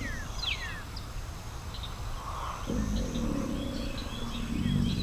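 American alligators bellowing in a lagoon: a low rumbling growl starts abruptly a little over halfway through and carries on, with the tail of an earlier one at the start. Small birds chirp over it in quick, falling whistles.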